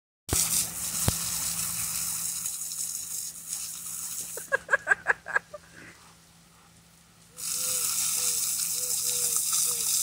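Garden hose jet spraying and splattering against a Rottweiler–Mastiff mix as she bites at it, in two long stretches with a quieter gap between, when the stream falls on the grass instead. Short high vocal sounds come near the middle, and a row of soft, evenly spaced short calls runs under the second stretch of spray.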